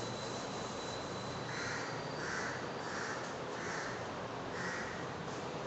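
A bird cawing, about five short calls spaced well under a second apart, over a steady background hiss.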